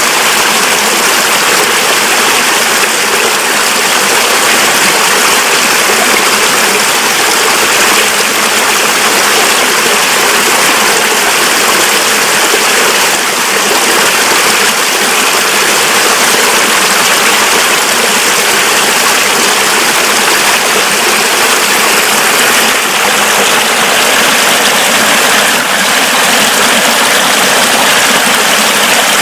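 A mountain river swollen with snowmelt, its water rushing steadily.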